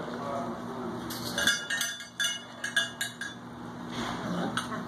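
A litter of puppies eating from metal feeding dishes: a run of sharp metallic clinks and rattles as they push and nose the dishes, starting about a second in.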